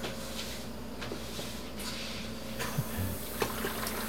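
Light knocks and clicks as quince pieces and a steel stockpot are handled. From about two and a half seconds in, water is poured from a small saucepan into the pot over the fruit. A steady low hum runs underneath.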